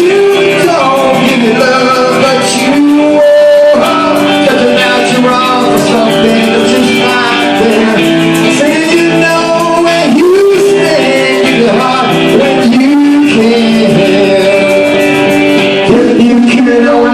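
Rock song playing at full level: guitar and band under a wavering melodic lead, in a break between sung lyrics.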